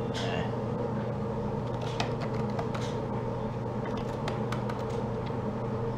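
A steady mechanical hum from a running machine, with a few light clicks and taps.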